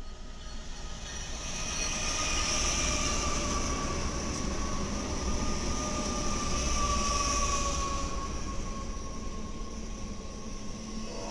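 BNSF diesel freight locomotives and double-stack intermodal cars passing close by. The sound is a rumble of engines and rolling wheels that builds over the first couple of seconds and eases a little near the end, with a thin high whine that falls slowly in pitch.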